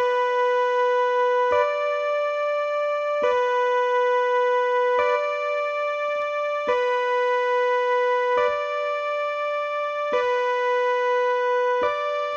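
Electronic keyboard imitating a high-low two-tone siren, an escape signal: two held notes a little apart in pitch take turns about every 1.7 seconds.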